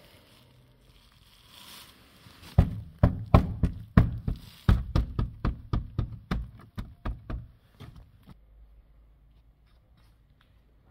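A screwdriver jabbed again and again into the rusted steel underside of a 1987 Opel Kadett Caravan's sill and floor, probing for rotten metal. It makes a run of sharp knocks, about three or four a second, that start a couple of seconds in and grow weaker until they stop about five seconds later.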